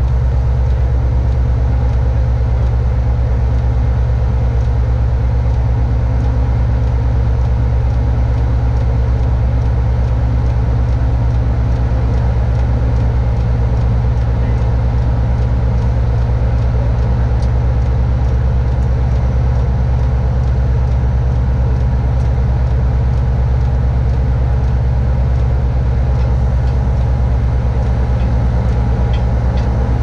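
A vehicle engine running steadily, a deep, even drone that holds unchanged throughout.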